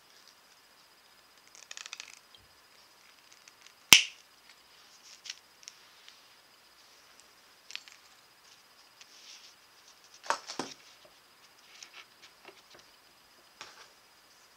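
Scattered small clicks and taps of jewelry pliers and thin wire being worked by hand, with one sharp click about four seconds in and a short run of clicks around ten seconds.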